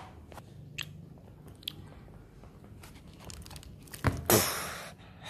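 Light crinkling and small clicks of a handmade cardboard ship model being moved by hand, then a sharp knock about four seconds in and a loud scraping rush that fades within a second.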